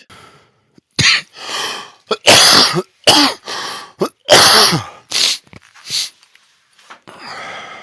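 A man coughing and hacking in a long run of about eight harsh coughs and throat-clearings, a few of them voiced and dropping in pitch.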